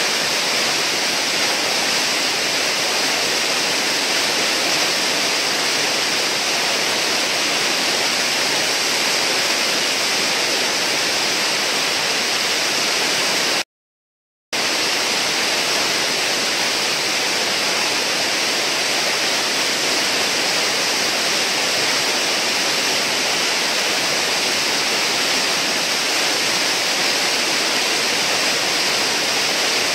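Whitewater rushing through a river hole: a loud, even rush of churning water with no let-up, broken only by a dropout to silence for under a second about halfway through.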